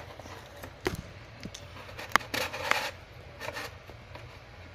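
A card scraping and rubbing against cardboard as it is pushed into the slot of a homemade cardboard vending machine, with a few sharp clicks and short scratchy bursts.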